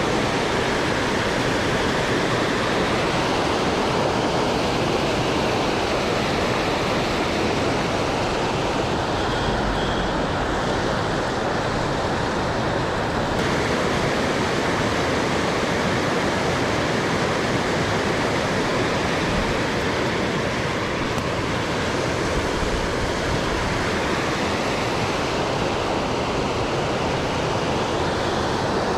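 River water rushing steadily, a constant even roar.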